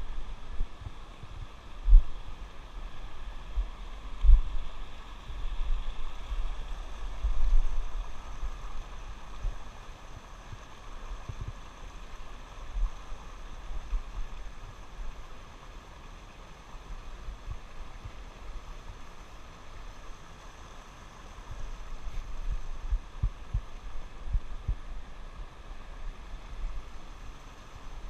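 Shallow mountain stream running over rocks, a steady rushing, broken by irregular low thumps and rumbles, loudest about two, four and seven seconds in and again near the end.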